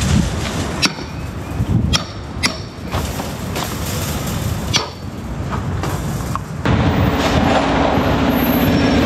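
Footsteps crunching over gravel and dry grass with a few sharp clicks, then, about two-thirds of the way in, a sudden switch to a concrete mixer truck's diesel engine running steadily.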